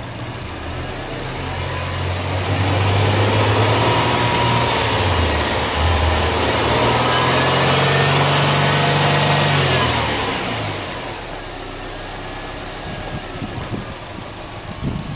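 Subaru Impreza S-GT's turbocharged flat-four boxer engine revved with the car standing: it climbs from idle about two seconds in, holds at raised revs for several seconds with a brief dip, then drops back to a steady idle about ten seconds in.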